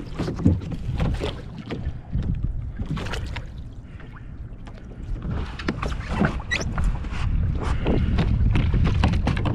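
Water splashing and the plastic hull of a Pelican Catch PWR 100 kayak knocking and rocking as a swimmer hauls himself back aboard, over wind rumbling on the microphone.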